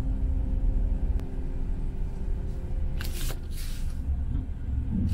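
Low steady rumble of a car's engine and road noise heard from inside the cabin in slow traffic, with two short hissing whooshes about three seconds in.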